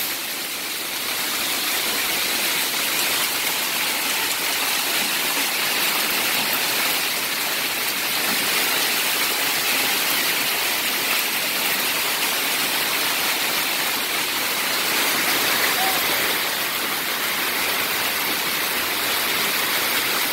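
Heavy hail and rain pelting down in a storm, a loud, steady, dense din with no let-up.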